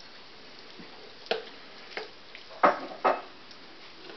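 A spoon knocking and scraping against a bowl and a blender jar as flaked canned tuna is scooped in: four short clinks, the last two loudest.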